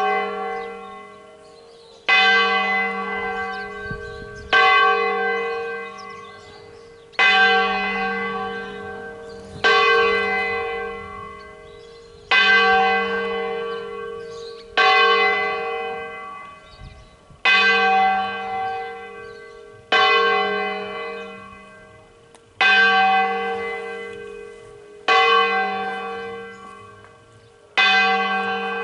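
A large church bell swinging full circle (a distesa) and being struck by its clapper about once every two and a half seconds. Each stroke rings out and fades slowly before the next one.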